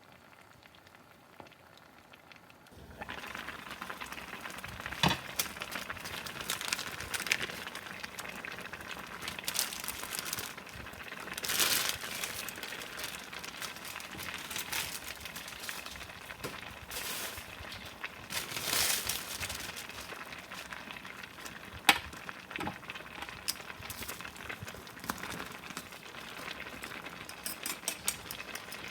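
A pot of budaejjigae stew boiling, starting a couple of seconds in, with crinkling and a few sharp clicks and knocks over it.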